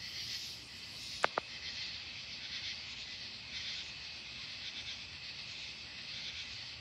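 Night insects chirring steadily in a high, shimmering drone, with two sharp clicks close together about a second in.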